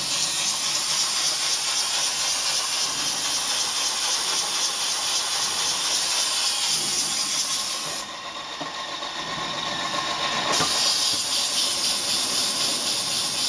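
Muhr & Bender Mubea-Matic CNC plate drilling machine at work, with a steady loud hiss. The hiss cuts out about eight seconds in and comes back with a click some two and a half seconds later.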